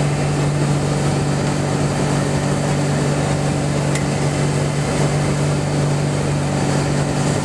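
Towboat's engine running steadily at speed, a constant low drone, over the rush of water from the hull and wake.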